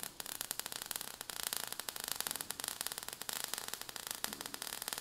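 Sparks sound effect: a faint, steady fizzing crackle of many tiny clicks.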